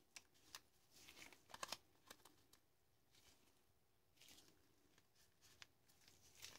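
Near silence, with a few faint clicks and rubs from gloved hands handling a metal torque wrench, two clicks close together about a second and a half in.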